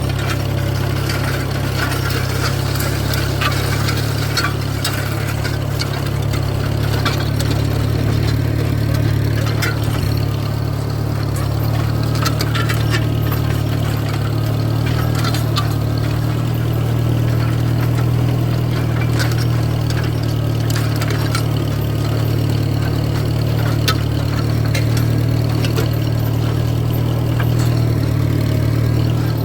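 Tractor engine running steadily, with scattered light clicks and rattles over it.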